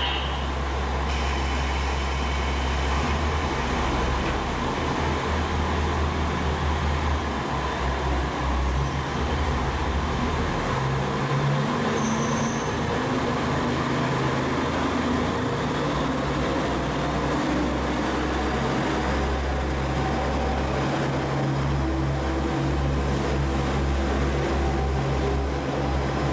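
Diesel engine of a JR KiHa 47 railcar running with a strong, steady low hum, its lowest note dropping away and coming back several times.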